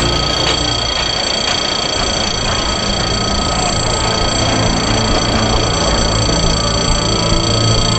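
Coaches of a narrow-gauge heritage train rolling past and away along the track: a steady rumble and rail noise with a few faint clicks in the first seconds. Several steady high-pitched whining tones run underneath.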